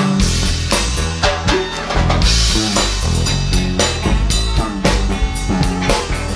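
Live band playing an instrumental groove: a drum kit with bass drum and snare keeps a steady beat under a prominent electric bass guitar line.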